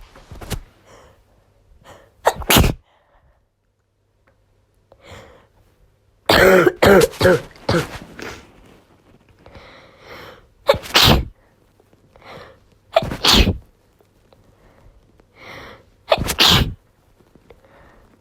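A woman with a congested cold sneezing again and again: several loud sneezes a few seconds apart, with a quick run of them about six seconds in and a drawn-in breath before several. The sneezes are self-induced.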